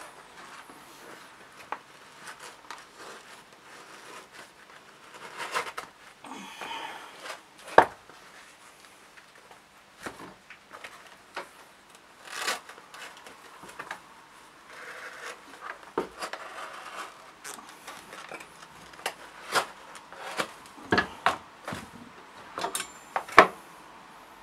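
Hunting knife cutting strips from a stiff, fur-covered animal hide: irregular scraping and rustling of the hide, with sharp knocks and clicks now and then. The loudest come about eight seconds in and near the end.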